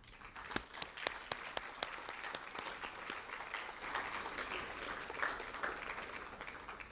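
Audience applause that starts abruptly and dies away near the end.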